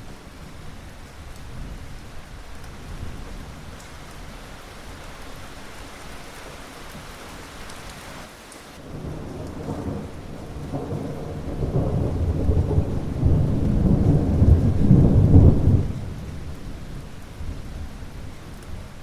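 Steady rain with a long rolling rumble of thunder that builds through the middle, swells to its loudest after about twelve seconds, then drops away suddenly, leaving the rain.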